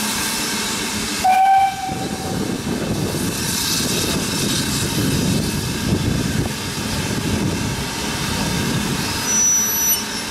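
BR Standard Class 9F 2-10-0 steam locomotive giving a short whistle blast about a second in, then starting away with hissing steam and a steady low rumble of its working. There is a brief thin high squeal near the end.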